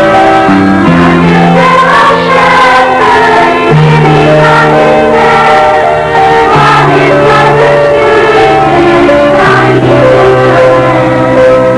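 School choir singing a Christmas song in harmony, holding long chords that change every second or few.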